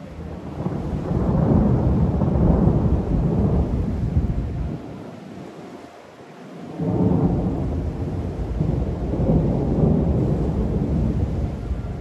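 Distant thunder rumbling in two long rolls. The first builds over about a second and rolls for several seconds before dying away. The second starts suddenly about seven seconds in and keeps rumbling.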